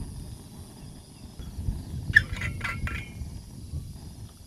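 Strong wind buffeting the microphone as a steady low rumble, with a quick cluster of sharp clicks and small clinks about two seconds in.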